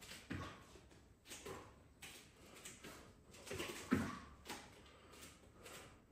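A boxer drilling double jabs: short bursts of breath and body movement, about one or two a second and irregular, the loudest a little before four seconds in.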